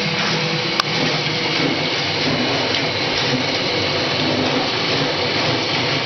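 Washing machine running with a steady mechanical whirr and low hum, and a single sharp click just under a second in.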